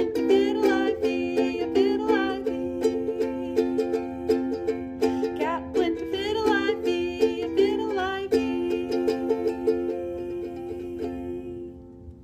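Ukulele strummed in a steady rhythm under a woman's singing voice for about the first eight seconds. The strumming carries on alone for a few more seconds, then stops, and the last chord rings out and fades.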